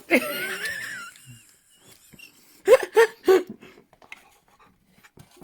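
A person's voice: a wavering, wordless vocal sound in the first second, then a few short laugh-like bursts about three seconds in.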